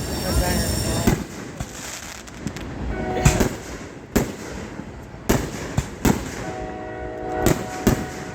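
Fireworks going off in a string of sharp bangs. A train horn sounds twice as a held chord over them, about three seconds in and again around seven seconds.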